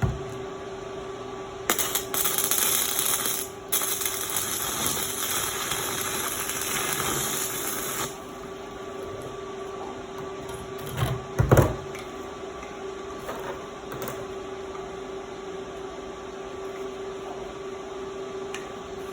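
Stick (arc) welding: the electrode arc crackles and hisses steadily for about six seconds, with a brief break near the start, then stops. A couple of knocks follow about eleven seconds in, over a steady hum.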